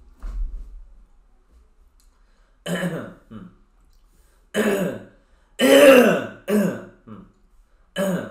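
A man clearing his throat and coughing repeatedly in short, rough bursts, starting about two and a half seconds in, the longest about six seconds in.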